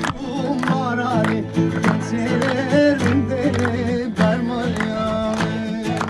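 Acoustic guitar strummed in a steady rhythm, with singing over it.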